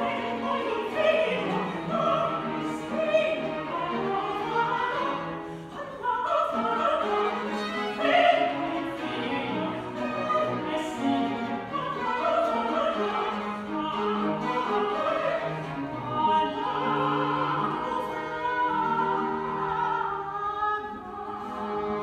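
Female opera singer singing an Italian baroque aria, accompanied by a small ensemble of bowed strings.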